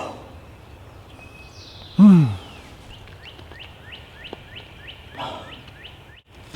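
A man lets out a short, loud groan that falls in pitch, about two seconds in. Then a songbird sings a quick run of rising chirps, about four a second, for about three seconds.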